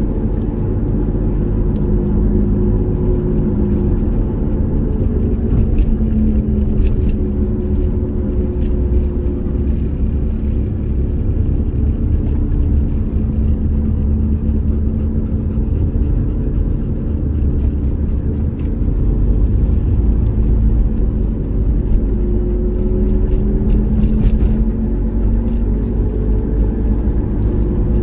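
Cabin noise of a moving hatchback: a steady low rumble of engine and tyres on the road, the engine note drifting slightly up and down.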